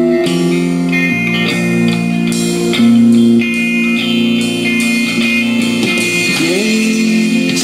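A slow, guitar-led song plays from a SOL Republic Punk portable Bluetooth speaker during an instrumental passage between vocal lines. It has sustained notes, with one note sliding upward about six seconds in.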